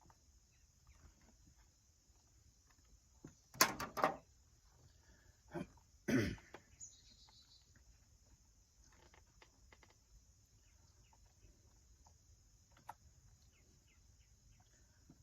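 A person coughing a few times in short bursts, over steady insect chirping.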